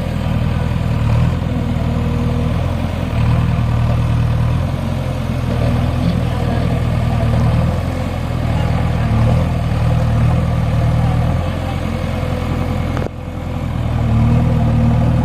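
JCB backhoe loader's diesel engine running, its note swelling and easing every few seconds as it takes and drops load.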